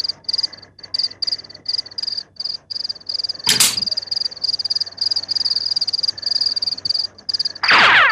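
Night-time chirping of crickets: a high, pulsing chirp repeating about four times a second. A short loud noisy burst comes about three and a half seconds in, and a quick falling swoop comes just before the end.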